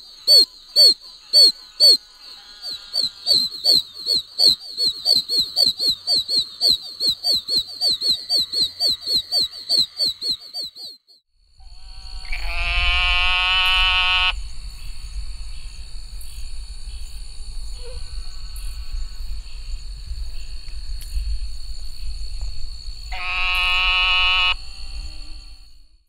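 Oak toad chorus: a rapid series of high, peeping chirps, about three a second, stopping about 11 seconds in. Then a sheep frog gives a long, nasal, bleating call twice, each about two seconds, over a steady low background rumble.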